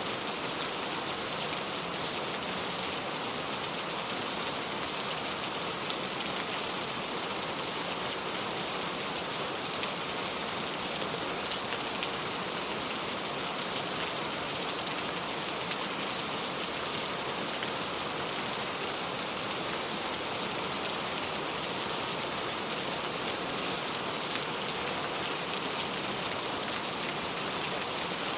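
Heavy rain pouring steadily, a dense even hiss with the occasional closer drop ticking on a surface.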